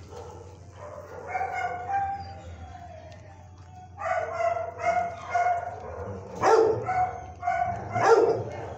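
Kennelled dogs yipping and barking. There is a run of short high-pitched yips about a second in and again from about four seconds, with two louder barks toward the end.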